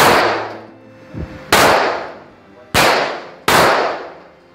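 Four handgun shots on an indoor shooting range, each with a long echo that fades off. The shots come unevenly: about a second and a half apart, then a second, then under a second.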